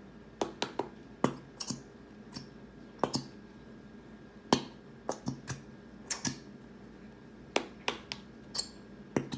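Plastic glitter glue bottle squeezed and flexed by hand to force out the last of the glue, giving irregular sharp clicks and crackles, often two or three in quick succession.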